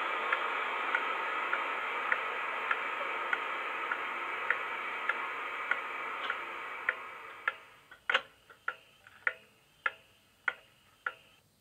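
Sound-fitted model HST's speaker playing a Paxman VP185 diesel engine running sound, with a regular tick about every 0.6 seconds. The engine sound dies away about seven to eight seconds in, leaving the ticks going on alone.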